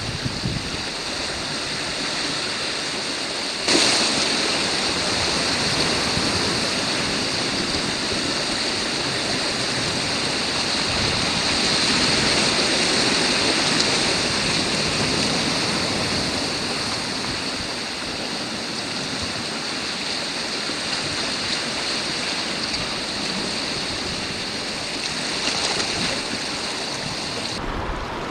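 Sea surf washing over shore rocks: a continuous rush of moving water, which gets abruptly louder about four seconds in.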